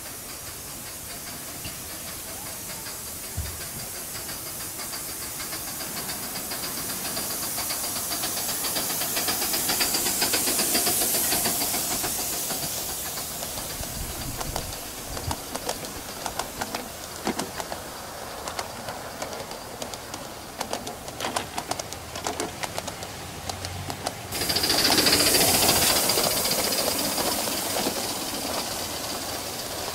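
Aster Gauge 1 live-steam Great Northern S-2 4-8-4 model locomotive running with a freight train: a steady hiss of steam that grows louder as the engine approaches and peaks about a third of the way in. Then a run of sharp clicks as the freight cars' wheels pass over the track, and about three-quarters of the way in the steam hiss comes back abruptly and louder.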